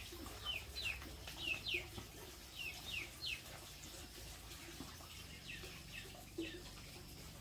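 Chicken chicks peeping: a run of short, high peeps, each falling in pitch, coming quickly for the first three seconds or so and then only now and then.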